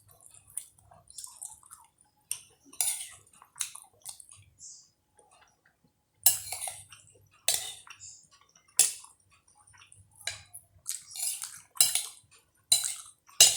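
Eating at the table: a spoon clinking and scraping against a plate or bowl, with chewing and mouth sounds. The clinks come irregularly, more of them in the second half.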